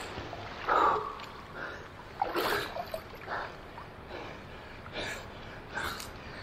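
A swimmer breathing hard in a series of gasps after a 250 m front-crawl effort, with water splashing and lapping around him. The loudest gasp comes about a second in.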